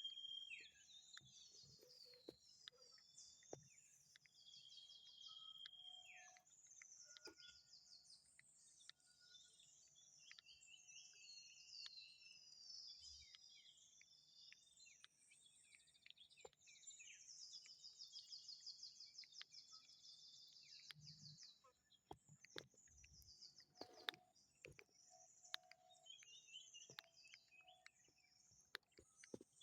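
Faint chorus of birds calling, with many overlapping chirps, rapid trills and descending whistles, and a few soft knocks.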